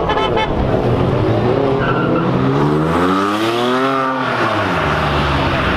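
A car engine revving up and dropping back once around the middle, over the steady running of other engines.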